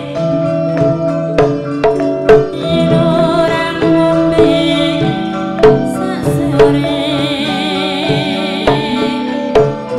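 Javanese gamelan music for Tayub, a slow alusan gending. Metallophones and gongs ring in held tones, a hand drum (kendang) strikes at intervals, and a female singer's wavering voice comes in and out.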